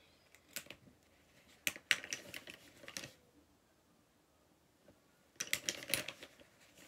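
Light clicks and clatter of makeup products being handled and picked through, with caps and small containers knocking together. The clicks come in two short flurries, about two seconds in and again near the end.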